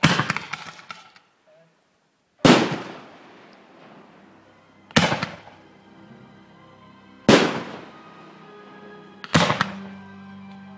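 Fireworks bursting: five loud bangs about every two to two and a half seconds, each fading away. The first is followed by about a second of crackling. Music plays underneath from a few seconds in.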